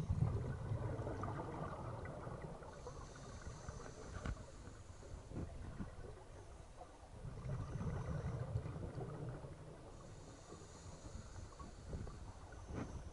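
Scuba diver breathing through a regulator, heard underwater: muffled bubbling rumbles of exhaled air at the start and again about seven seconds in, each followed by a faint hiss of inhalation through the regulator, in a slow, even breathing cycle.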